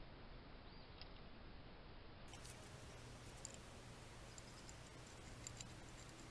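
Near silence: faint room tone with a low steady hum and a few faint ticks.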